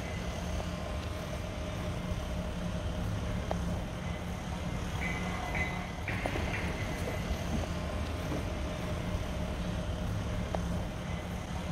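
Steady low rumble of city street traffic noise.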